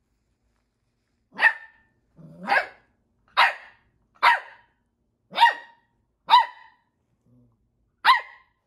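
Corgi puppy barking seven short barks, about one a second with a longer pause before the last, at its own reflection in a mirror.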